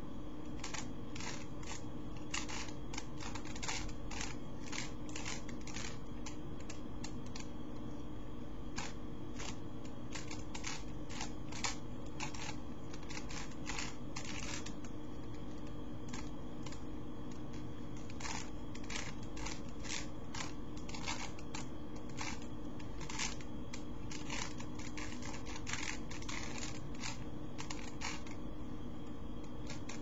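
Rubik's Cube layers being turned by hand: quick, irregular runs of small plastic clicks and clacks, thinning out twice for a couple of seconds, over a steady low hum.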